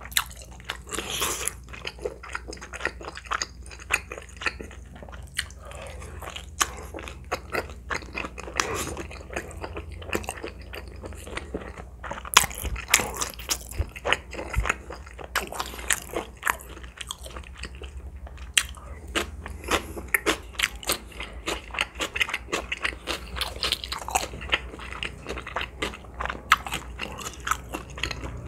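Close-miked crunching and chewing of crispy oven-roasted pepper chicken, with many sharp crunches as the coating breaks between the teeth.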